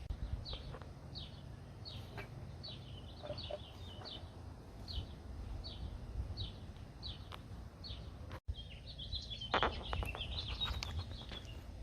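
A songbird repeating a short, high, falling chirp about every half second, then breaking into a faster twittering near the end, over a low steady rumble.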